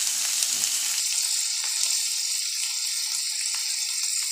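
Chopped green capsicum and onion sizzling steadily in hot oil in a pan: an even hiss with a few faint crackles.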